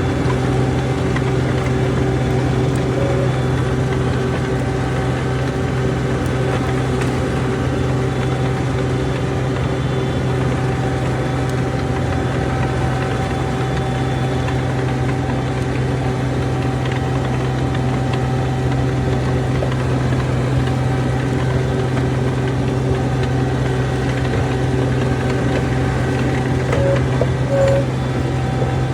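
John Deere 250 skid steer's diesel engine running steadily, heard from on board the machine. A few short beeps sound near the end.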